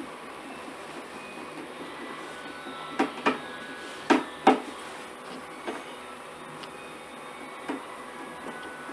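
Hand screwdriver driving screws into the plastic housing of an Orpat OCH-1400 convector heater: a handful of sharp clicks and taps of the tool on the screws and casing, two quick pairs about three and four seconds in and a few single ones after, over a steady room hum.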